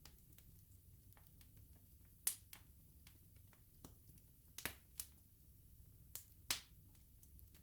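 Burning wood crackling and popping in an open bonfire: irregular sharp snaps, a handful louder than the rest, over a faint low rumble of the fire.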